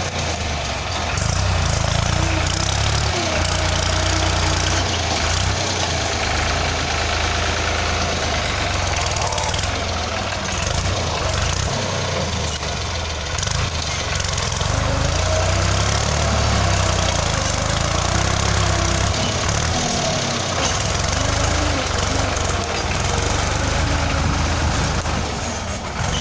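Farm tractor engine running steadily while pulling a plough through a field.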